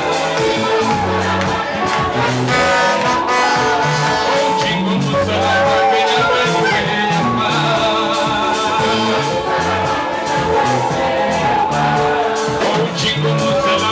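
A band playing music, with singing, a steady bass line and held melody notes.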